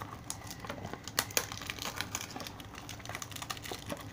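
Small blind-box packaging handled and opened by hand: irregular crinkling with many sharp little clicks.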